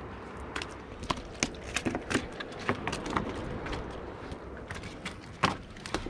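A small fluke (summer flounder) flopping on the wooden planks of a pier deck: a run of irregular sharp slaps and knocks, the loudest near the end.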